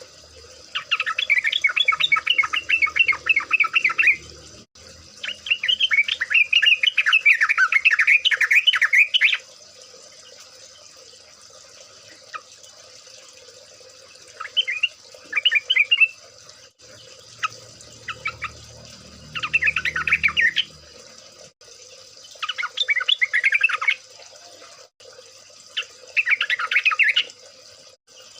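Sooty-headed bulbuls singing together in bursts of rapid, bubbly chattering notes, each burst one to four seconds long, six in all with pauses between. A faint steady high hiss runs underneath.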